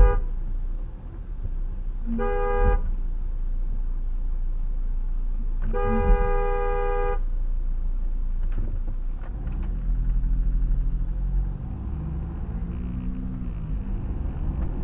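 Car horn honking twice, a short toot about 2 s in and a longer blast of over a second about 6 s in, sounded at buses stopped and blocking the road. From about 10 s in a car engine runs louder as the car pulls away.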